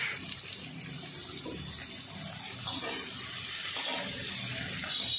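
Chopped onions and curry leaves sizzling steadily in hot oil in an aluminium kadai. Near the end a ladle starts stirring them in the pan.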